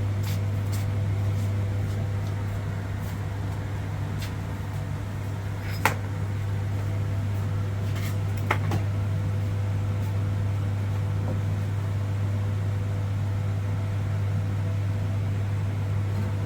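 Steady low electrical hum of running kitchen machinery, with two sharp clicks, one about six seconds in and another about two and a half seconds later.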